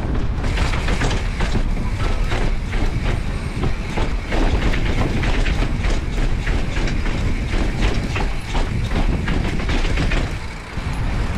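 Bicycle riding down stone steps: a fast, uneven clatter of the tyres dropping onto each step and the bike rattling over them.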